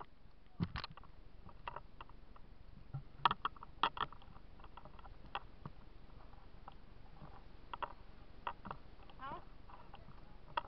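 Irregular knocks, taps and scuffs from a hand-held or body-worn camera carried by someone walking, over a steady low background.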